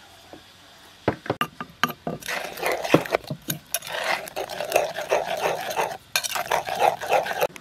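Metal spoon stirring a thin chilli dipping sauce in a wooden mortar. A few light clinks come about a second in, then continuous scraping and swishing, with a brief pause near the end.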